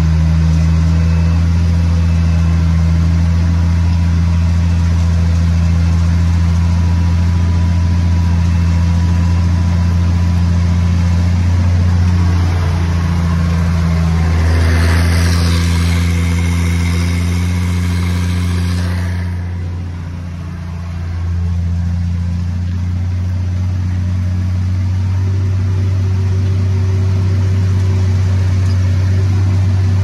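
Ursus C-3110's Perkins six-cylinder diesel running steadily under load, pulling a reversible plough through heavy clay. About halfway through, a rush of wind hiss covers it for a few seconds. Then the engine briefly dips and picks back up to its steady note.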